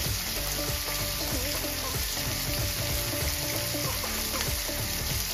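Masala-coated pomfret fish sizzling steadily as they shallow-fry in a little hot oil in a frying pan over a medium-low flame.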